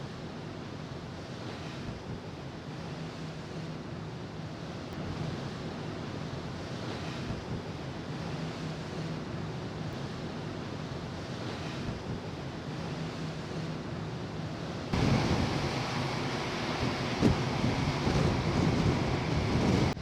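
Wind and rushing sea water around a large ferry under way, with a faint steady low hum from the ship. About fifteen seconds in it jumps abruptly louder, with wind buffeting the microphone.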